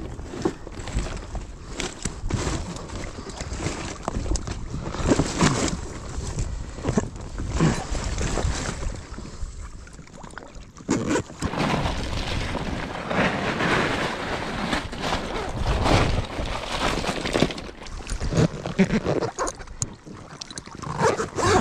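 Water sloshing and splashing against a kayak hull, with wind on the microphone and irregular knocks and rustles from gear and the insulated fish bag being handled on deck.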